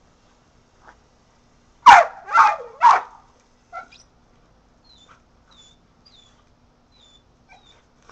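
Kelpie-mix dog barking three times in quick succession, each bark short and dropping in pitch.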